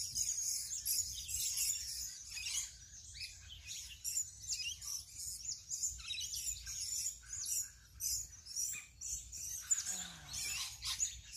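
Small birds chirping: a dense, continuous run of short, high calls.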